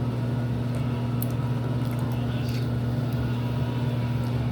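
A steady low machine hum at an even level, with a few faint ticks about a second and two and a half seconds in.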